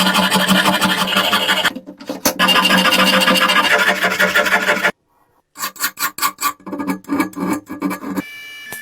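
Rasping, scraping work on the rusty steel head of an antique fire axe during rust removal: long runs of dense scraping with a short break between them, then after a brief pause separate strokes at about three a second. Near the end it cuts to a quieter steady hum.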